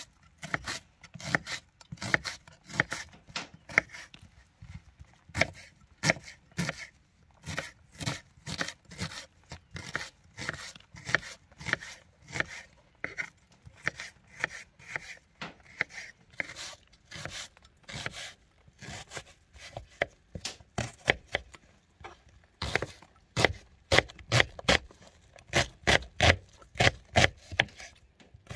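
Kitchen knife slicing and dicing a red onion on a wooden cutting board: a steady run of crisp cuts, each knocking on the board, several a second, louder for the last six seconds or so.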